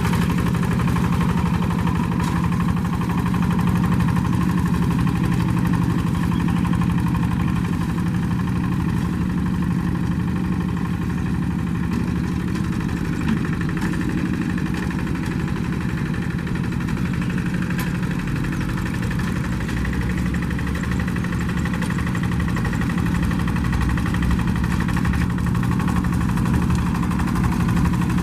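Hand tractor's diesel engine running at a steady speed, with no change in pitch.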